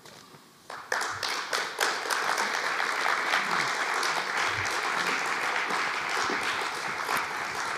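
Audience applauding. It starts with a few separate claps and fills out into steady applause about a second in.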